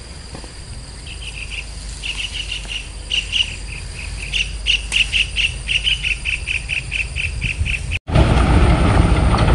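An insect chirping in an even run of short pulses, about three a second, getting louder. About eight seconds in, the sound drops out for an instant and gives way to a loud, rumbling noise.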